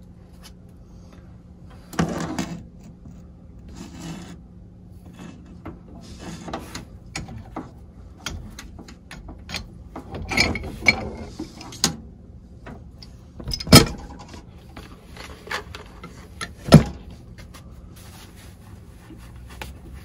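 Pliers and hands working a brass Y-strainer and ball valve on a heat pump's water line: scattered metal clicks, scrapes and rattles, with two sharp knocks in the second half. A low steady hum runs underneath.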